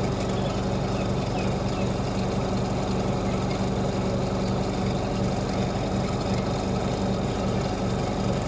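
Semi-automatic washing machine's spin-dryer motor and tub running empty with a steady hum, without knocking.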